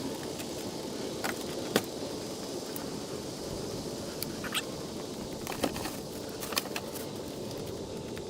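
Scattered light clicks and taps of parts and wiring being handled, the sharpest about two seconds in, over a steady low background noise.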